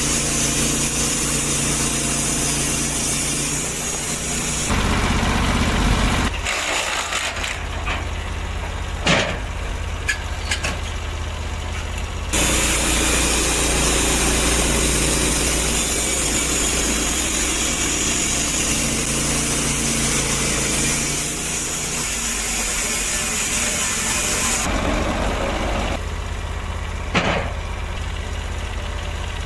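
Sawmill engine running steadily, with the saw cutting through a log: a loud hissing cut from about 12 to 25 seconds in and a shorter burst near 5 seconds. A few sharp knocks come between the cuts.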